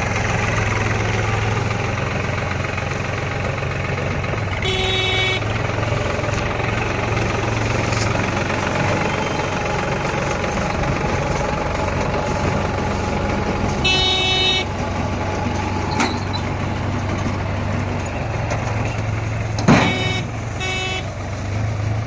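Tractor engine running steadily under load while driving a Bull Agro baler, with continuous mechanical running noise. Brief high-pitched toots come about five seconds in, again around fourteen seconds, and twice close together near the end.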